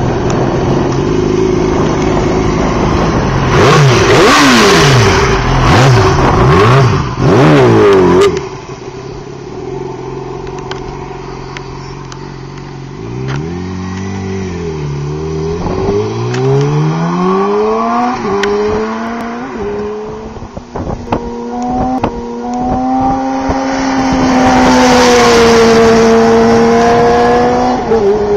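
Yamaha R6's inline-four engine running and being revved: several quick throttle blips in the first eight seconds, back down to idle, then the revs climb slowly to a high rev held for several seconds near the end.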